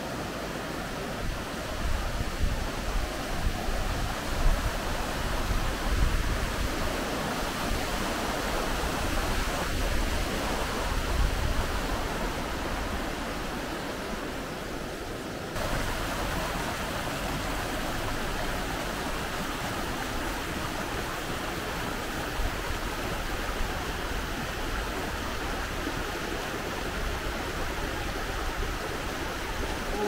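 Rushing water of the Weisse Lütschine, a fast glacier-fed river, with an uneven low rumble swelling and fading over it. About halfway through it changes suddenly to a small mountain stream splashing steadily over rocks.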